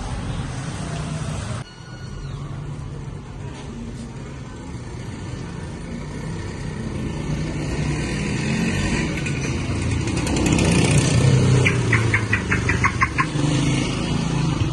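Street traffic: motor vehicles running and passing, growing louder toward the middle, with a quick run of clicks near the end.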